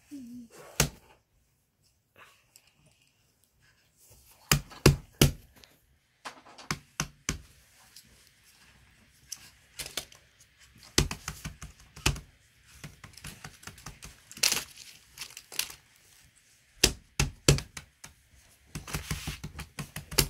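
Fidget toys being handled and set down: irregular sharp clicks and taps of plastic and silicone pop-it toys and simple-dimple keychains with their clips, some in quick clusters, after a quiet couple of seconds near the start.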